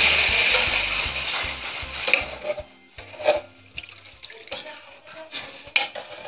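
Shrimp stock pouring from a glass bowl into a hot pan of sautéed aromatics, the sizzle loud at first and dying away over the first two to three seconds. A few light knocks follow, about two, three and six seconds in.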